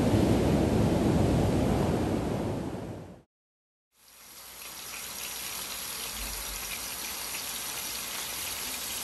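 Ocean surf breaking and washing up the shore, fading out to silence about three seconds in. Then chicken pieces frying in oil in a pan fade in, sizzling steadily with a faint crackle.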